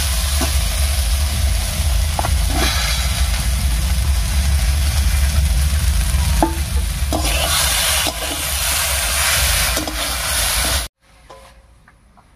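Starfruit pieces sizzling in oil in a wok as a spatula stirs them, with occasional scrapes against the pan over a steady low rumble. The sizzle cuts off abruptly near the end, leaving a much quieter stretch with a few light clicks.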